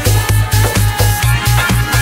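Electronic dance music with a steady beat and a pulsing bass line.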